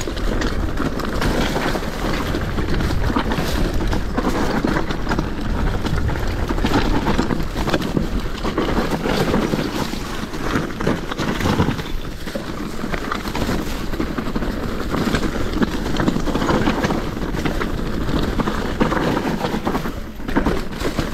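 Commencal Meta SX V4 full-suspension enduro mountain bike descending a rough dirt trail covered in dry leaves: steady tyre rumble and crunch with frequent rattling knocks from the bike over bumps, and wind buffeting the microphone.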